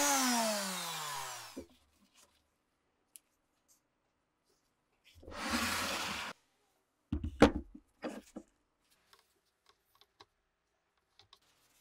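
Electric random orbital sander winding down after being switched off, its pitch falling over about a second and a half until it stops. After a pause there is a brief scraping rush, then a cluster of knocks and clunks as a metal bench vise is handled on the wooden bench.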